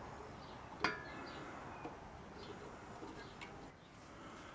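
A single light metallic click with a brief ring about a second in, from drum brake shoe hardware being handled. Faint bird chirps sound in the background.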